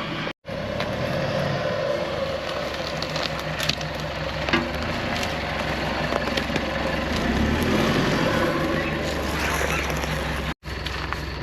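A four-wheel drive's engine running steadily as the vehicle moves along a rough bush track, with scattered crackles and knocks over the drone.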